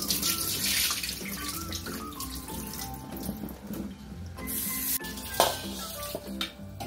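Tap water running into a stainless-steel sink as rice is rinsed in a bowl, loudest in the first second and splashing again about four and a half seconds in, over background music.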